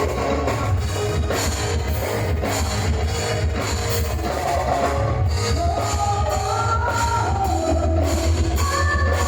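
Band music with drum kit, heavy bass and guitar playing steadily without vocals at first; a higher melody line comes in about halfway through.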